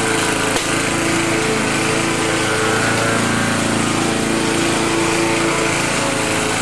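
A small engine running steadily at a constant speed, with an even buzzing hum.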